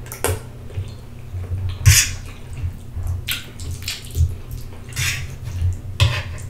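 Close-miked mouth sounds of eating spaghetti: wet chewing with about five short slurps and smacks.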